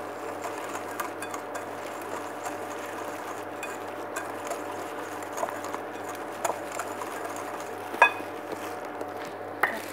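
Wire whisk stirring a dry flour-and-sugar mix in a glass bowl: a soft steady swishing through the powder, with a few clinks of the wires against the glass, the sharpest about eight seconds in.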